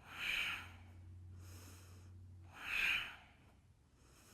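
A person taking slow, deep, audible breaths, the counted breaths of a yoga pose held in headstand. Two loud breaths come about three seconds apart, at the start and near three seconds in, with a softer one between them.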